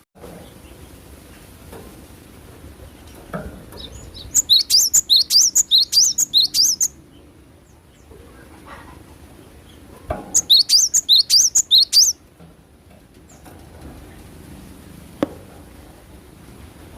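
Cinereous tit (gelatik batu) singing: two bursts of rapid, repeated high notes, about five a second, each burst lasting two to three seconds with a pause between.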